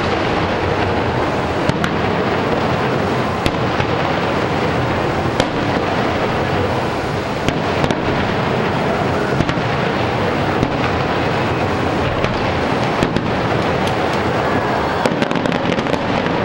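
Fireworks going off without pause: a dense, steady rumble of bursts with sharp cracks scattered irregularly through it.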